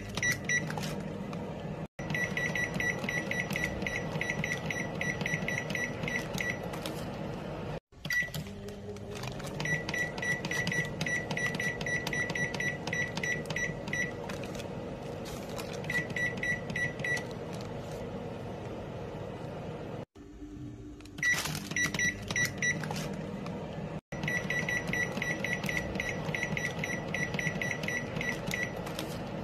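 Microwave oven control panel beeping as its buttons are pressed to set the timer. It gives runs of short, high-pitched beeps, about five a second, over a steady low hum, and the runs are broken by a few abrupt cuts.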